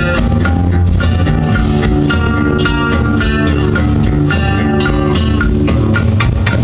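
Amplified electric guitar playing a heavy rock riff, loud and continuous, with the notes changing every fraction of a second.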